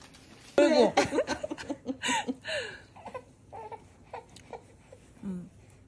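A newborn baby fussing, with short whiny cries in bursts, loudest about half a second in and some sliding down in pitch.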